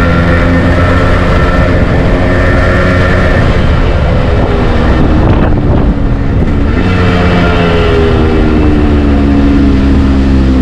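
Yamaha RX100's single-cylinder two-stroke engine running under way, loud, with a brief dip in the engine note about halfway through and its pitch then easing slowly down.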